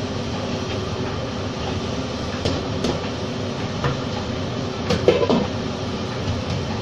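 Steady rumbling kitchen noise, with a few light clinks and knocks of kitchenware being handled at the counter, the loudest about five seconds in.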